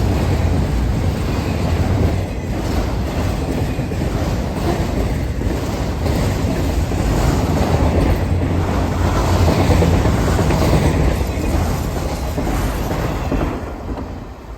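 A train's cars rolling past close by, a steady loud rumble and rattle of wheels on the rails that fades in the last second.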